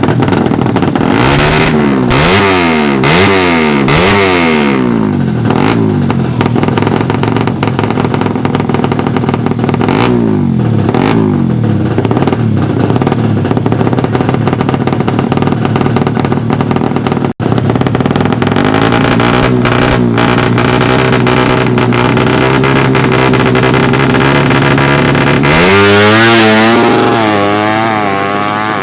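Suzuki Satria FU drag bikes' 147 cc single-cylinder engines revving hard, the pitch sweeping up and down repeatedly in the first few seconds and again around ten seconds in. Near the end comes a loud rising run with quick pitch jumps, like a bike launching up through the gears.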